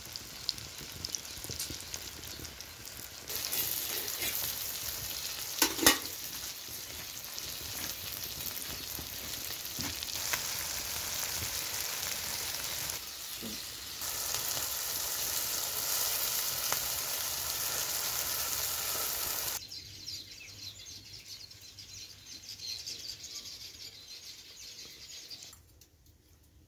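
Egg and cabbage omelette sizzling in hot oil in a flat pan over a wood fire, a steady hiss that jumps louder and quieter several times. A sharp click about six seconds in; the sizzling dies away near the end.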